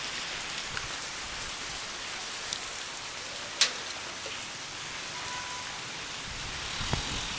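Heavy rain falling steadily on the ground, pavement and roofs: an even hiss, with one sharp click about three and a half seconds in. Near the end the low engine of a motorcycle on the wet street comes in.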